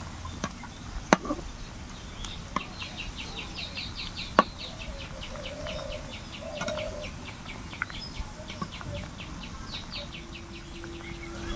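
Spiral-cut potatoes deep-frying and sizzling in hot oil, with two sharp clicks of a metal spatula against the frying pan about one and four seconds in. A fast, even run of high chirps, about four to five a second, goes on through most of it.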